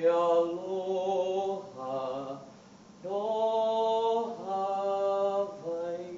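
A solo male voice singing a Hawaiian song unaccompanied, in long held notes, with a short pause about two and a half seconds in.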